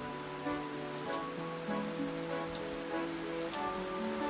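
Rain falling steadily, with individual raindrops pattering and splashing. Soft background music with long held notes plays underneath.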